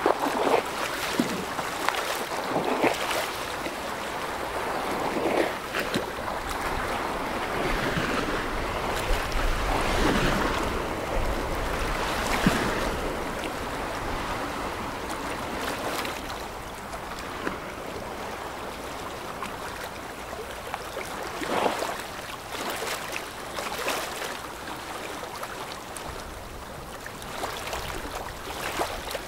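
Water rushing and splashing along a passing ship's hull, a steady wash with frequent small surges, with wind buffeting the microphone. It is louder for the first half and eases somewhat after the middle.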